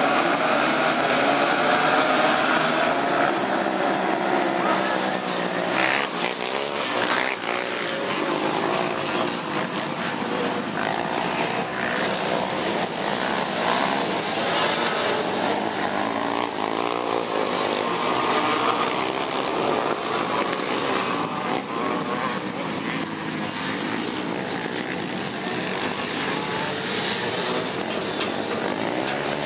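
Engines of a pack of racing three-wheeler ATVs, running at high revs together. The pitches rise and fall as the riders rev and shift, with a change a few seconds in as the pack leaves the start line and races off.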